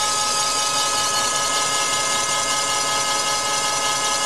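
Milling machine with a boring tool cutting out the original cylinder of a Subaru EJ257 block: a steady machining whine, several high tones held over a continuous hiss.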